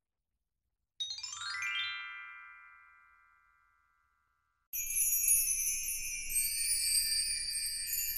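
A quick run of bell-like chime notes sweeping downward, ringing on and dying away over a few seconds. After a short silence, bright continuous jingling bells start about five seconds in.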